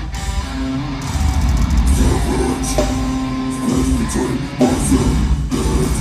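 Metalcore band playing live, with heavy electric guitars to the fore over bass and drums, getting louder about a second in.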